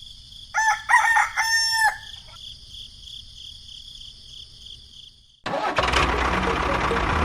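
A rooster crows once over a steady, pulsing chirp of insects. About five seconds in, this cuts off and loud music begins suddenly.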